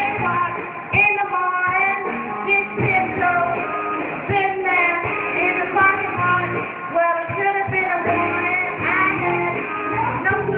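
A woman singing along over rock-style backing music, amateur singing that the uploader mocks as bad.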